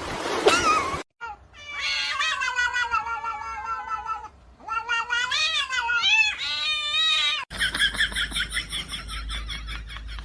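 A cat meowing in long drawn-out yowls: first one long call that slowly falls in pitch, then two or three shorter wavering calls. After an abrupt cut near the end comes a rapid, high-pitched pulsing sound.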